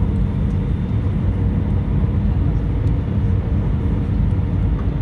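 Steady low roar of an airliner's jet engines and rushing air, heard from inside the passenger cabin during the descent to land.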